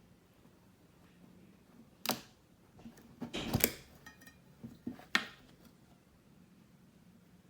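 A handful of short, sharp clicks and knocks of handling, spread over a few seconds, as the Cape Cod polish package is opened.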